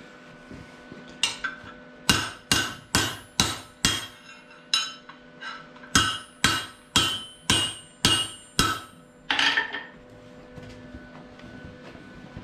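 Hammer striking cold steel rod over a bending tool set in the anvil's hardy hole, about fifteen blows at roughly two a second. Each blow rings, and they stop about ten seconds in.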